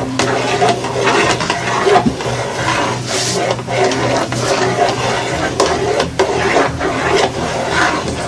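A spatula stirring thick, chunky tomato sauce in a large metal pot, with repeated scrapes against the pot's sides and bottom.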